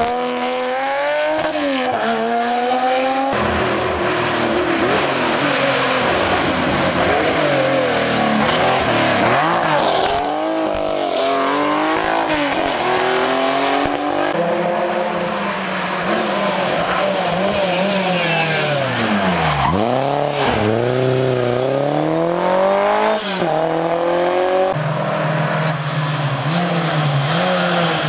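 Historic rally car engines revving hard one after another, the pitch climbing with each gear and dropping sharply on lifts and downshifts. The sound changes abruptly three times as one car gives way to the next. A Porsche 911's air-cooled flat-six pulls away at first, and a Fiat 131 Abarth's four-cylinder comes on near the end.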